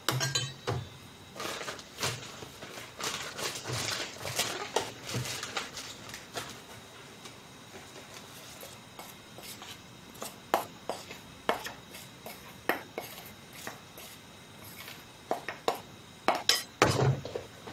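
Rustling plastic and light clinks as rice flour is tipped from a plastic bag into a bowl and the bowl is handled. The sounds are busiest in the first few seconds and again near the end, with sparse clicks in between.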